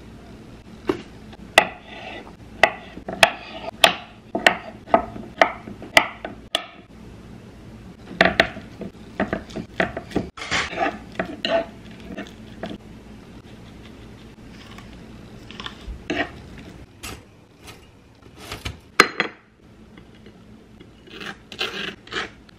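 Metal fork mashing avocado against a wooden cutting board: a run of sharp taps, about two a second, then rougher scraping and knocks. Near the end, a table knife scrapes across a slice of toast.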